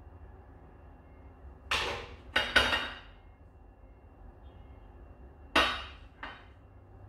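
Sharp kitchen knocks as a wire whisk and a mixing bowl are struck against hard surfaces. Three come in quick succession about two seconds in and two more near the end, each ringing briefly.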